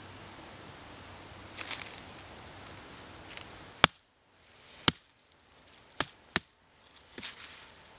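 Hatchet chopping down on a small piece held upright against a log: four sharp knocks, the last two close together, with some rustling handling noise before and after.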